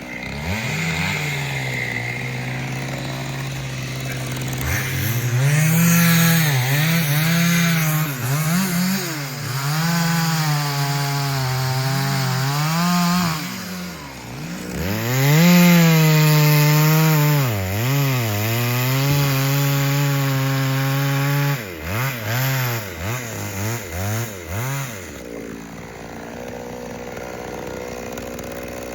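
Two-stroke chainsaw cutting into a tree, the engine pitch dipping and recovering again and again as the chain loads in the wood. Near the end come a few short throttle blips, then the throttle is released and the saw falls quiet.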